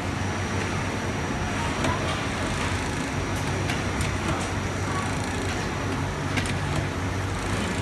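Yin programmable sewing machine stitching automatically along a pattern template: a steady mechanical hum with a few sharp clicks.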